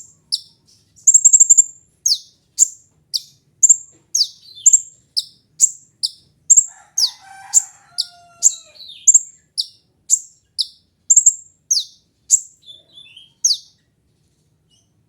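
Brown-throated sunbird (kolibri ninja) calling a long series of sharp, high notes, each falling in pitch, about two a second with a quick flurry about a second in, stopping shortly before the end.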